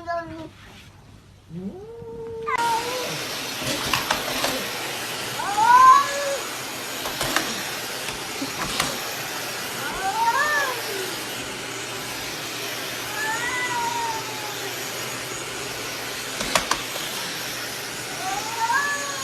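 A cat meowing four times, spaced a few seconds apart, each call rising and then falling in pitch. Behind the meows are a steady hiss and a few short knocks.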